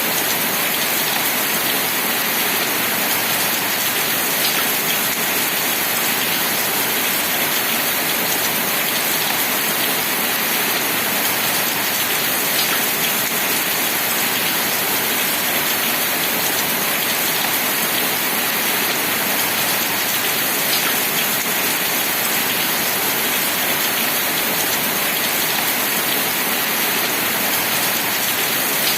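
Steady, even rain falling, with a few faint individual drops now and then.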